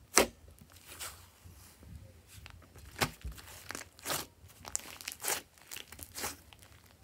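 Thick cream slime being pressed and squeezed by hand, giving an irregular series of sharp pops and crackles as air trapped in it is squeezed out; the loudest pop comes just after the start.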